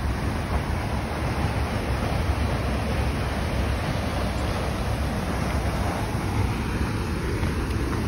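Steady rushing roar of a nearby waterfall, even and unbroken, with a deep rumble underneath.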